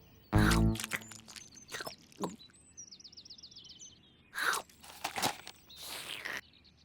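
Cartoon sound effects: a short musical chord, then a quick run of high twittering chirps and a few crunching and clicking noises.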